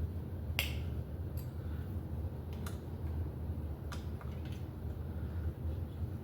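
A handful of sharp clicks and taps from hands and tools working on a cantilever bicycle brake as its arms and spring are set up, the loudest a little over half a second in. A steady low hum runs underneath.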